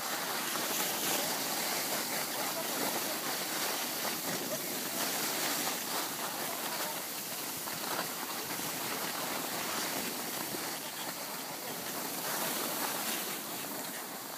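Steady rushing hiss of skis sliding over packed, tracked snow while skiing downhill.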